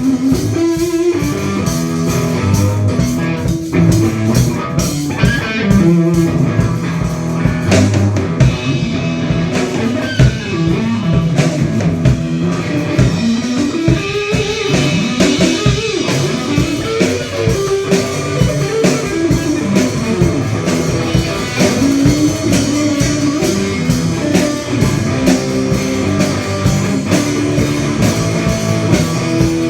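A rock band playing guitar-led blues-rock, the guitar over a drum kit keeping a steady beat.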